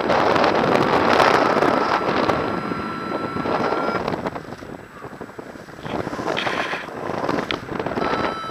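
Airflow buffeting the microphone of a paraglider pilot's harness-mounted camera in flight, a rushing noise that eases off about five seconds in and picks up again.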